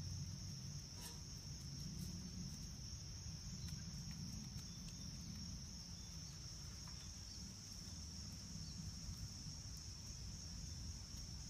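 Insect chorus: a steady high-pitched trill that does not change, over a low steady rumble, with a few faint clicks.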